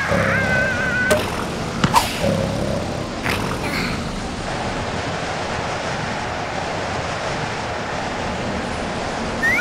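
Strong storm wind blowing steadily, a cartoon sound effect. In the first second a wavering, strained squeal sounds over it, and a few sharp clicks come in the first few seconds.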